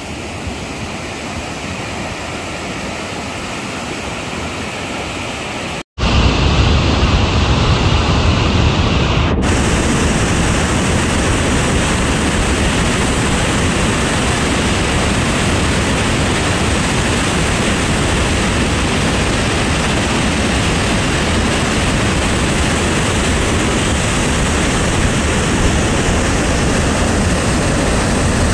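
Steady rushing noise of a rain-fed lahar (a flood of mud, water and volcanic debris) running over still-hot pyroclastic-flow deposits that are steaming as the water meets them, with a heavy low rumble. It jumps louder after a cut about six seconds in.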